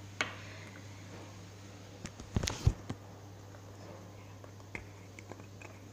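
Handling knocks and clicks: a sharp click shortly after the start, then a cluster of thumps about two and a half seconds in, with a few light ticks later, over a steady low hum.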